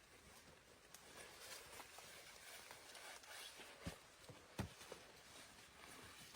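Near silence with faint rustling and two soft knocks a little under four and about four and a half seconds in.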